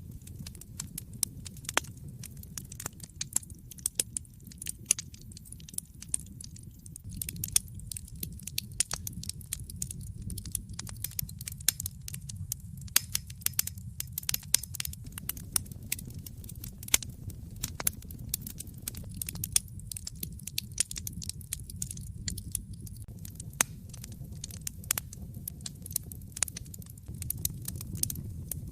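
Wood fire in a fireplace crackling: dense, irregular pops and snaps over a steady low rumble.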